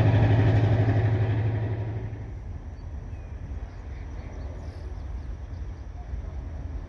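An engine running with a steady low hum that fades away about two seconds in, leaving a quieter low rumble.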